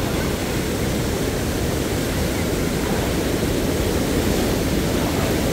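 Muddy floodwater from a river in spate pouring over a small concrete dam and rushing across flooded pavement: a steady, loud rush of water.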